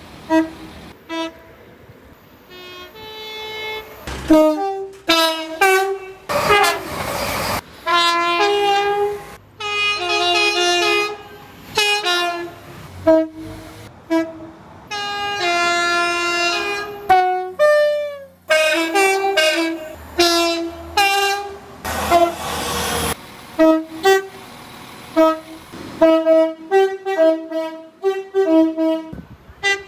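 A run of British passenger train horns, mostly two-tone high-low blasts, some short toots and some held. Twice the rushing noise of a train passing cuts in. About two-thirds of the way through, one horn note falls in pitch as its train passes. Near the end come quick short toots.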